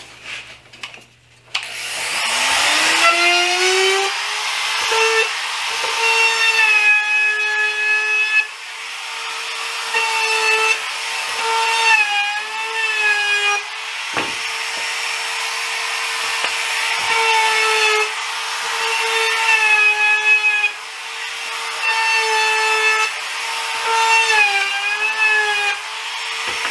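Compact trim router with a quarter-inch round-over bit spinning up with a rising whine about two seconds in, then routing along the edges of pine 1x4 boards. The pitch sags and wavers each time the bit bites into the wood.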